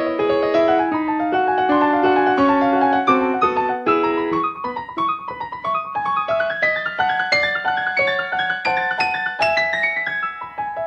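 Piano music: a steady run of quickly played notes with chords beneath, a melody moving up and down.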